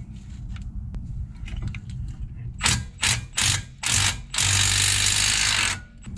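Compact cordless ratchet loosening a 21 mm brake caliper bracket bolt: four short trigger bursts, then one steady run of about a second and a half.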